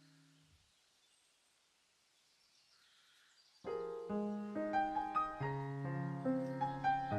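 Piano music starts suddenly just past halfway and plays a run of notes over lower held ones. Before that, a held low chord cuts off about half a second in, leaving a quiet stretch.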